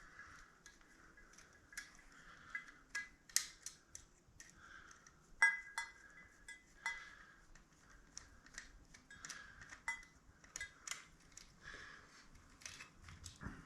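Hand tools working on metal fittings: irregular sharp metallic clicks and clinks, with one louder clank about halfway through.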